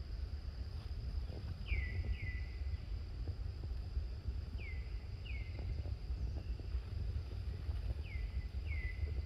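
A bird calling in pairs of short notes that slide downward, a pair about every three seconds, over a steady thin high insect hum and a low rumble.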